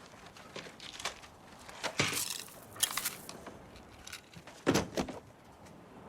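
Scattered clicks and knocks, with a sharper knock about two seconds in and the loudest pair a little before five seconds.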